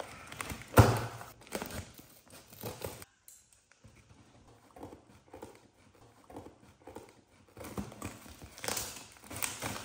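Cardboard shipping box and its plastic label pouch being torn and peeled open by hand, with a sudden loud rip about a second in, then scattered crinkling and rustling of cardboard and plastic.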